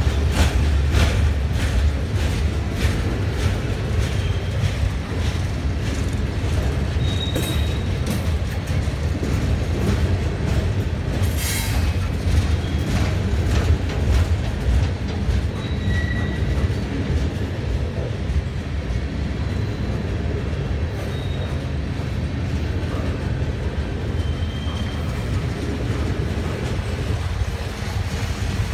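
Freight train's steel hopper cars rolling past: a steady low rumble with wheel clicks over the rail joints, thickest in the first few seconds, and a few brief high wheel squeals.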